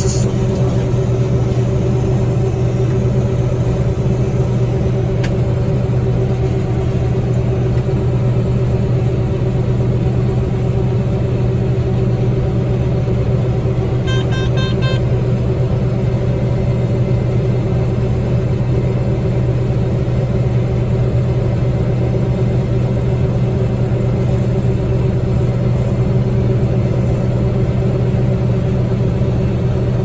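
Combine harvester running steadily, heard from inside the cab while it unloads wheat through its auger into a grain cart: a constant deep drone with a strong low hum. About halfway through, a brief burst of rapid electronic beeps sounds.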